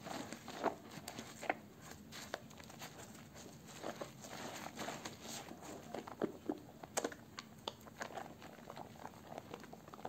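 Wet, soaked bar-soap remnants squished and rubbed between lathered hands: an irregular run of wet squelches and soft clicks from the foam and the soft soap.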